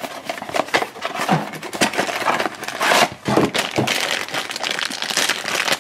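A black foil blind bag is crinkled and worked open by hand after the flap of a small cardboard blind box is lifted, giving a continuous stream of rustling and crackling.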